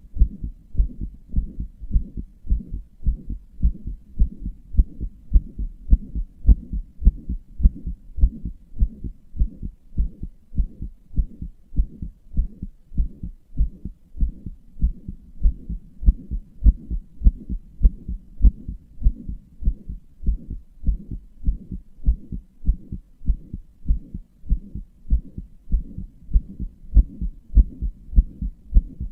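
A person's heartbeat, heard as low, evenly repeating lub-dub beats, from a heart the owner describes as murmuring.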